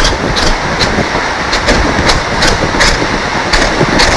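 Knife slicing moringa pods (drumsticks) on a wooden cutting board, sharp taps about two to three a second. Under it runs a loud, steady noise of microphone distortion, which the uploader puts down to the cook's pacemaker.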